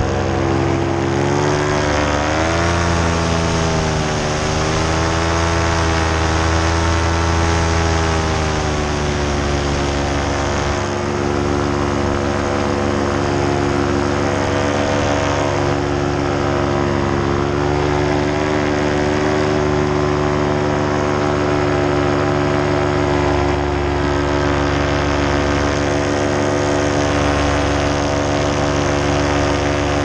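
Paramotor engine and propeller running in flight. The pitch wavers up and down from about two seconds in to about nine seconds in, then holds steady.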